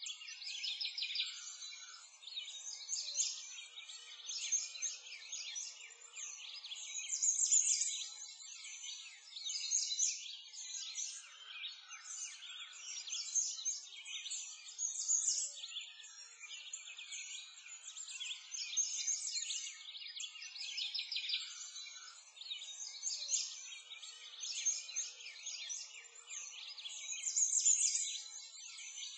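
A dense chorus of small songbirds chirping and trilling continuously, high-pitched and thin, swelling and fading every second or two.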